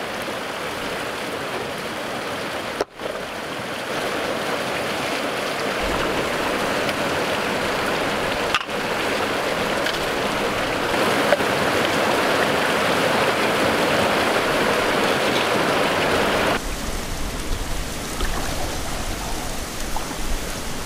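A river running fast and steady, a constant rush of water. It breaks off for an instant twice, and about three-quarters of the way through it turns duller, with a low rumble underneath.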